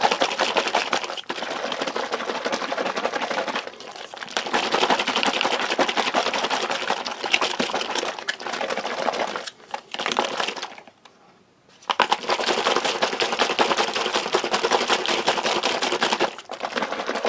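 Foil drink pouch holding water and shake powder being shaken and kneaded hard by hand: a dense crinkling rattle of the foil. It breaks off briefly a few times, with a full stop of about a second roughly eleven seconds in.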